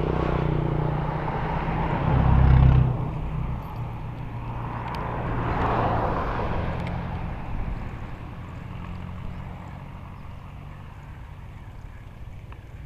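Road traffic passing close by: a vehicle's engine hum swells and falls away about two to three seconds in, then a second vehicle's tyre noise rises and dies away around six seconds in.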